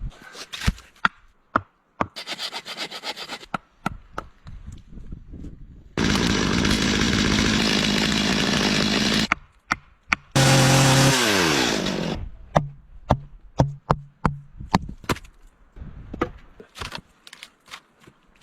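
Chainsaw cutting through dead spruce for about three seconds, then revving once more and winding down with falling pitch, among scattered knocks of logs being handled and stacked.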